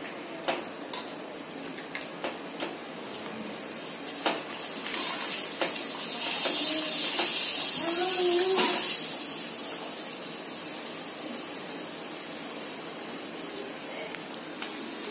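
Potato papad frying in hot oil in a metal kadhai: a hissing sizzle that swells about a third of the way in, is loudest a little past the middle, then slowly dies down. Metal tongs tap and scrape against the pan.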